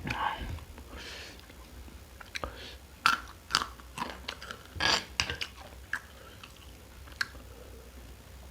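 Close-miked eating: chewing and biting, with a cluster of sharp crunches and mouth clicks between about three and five and a half seconds in.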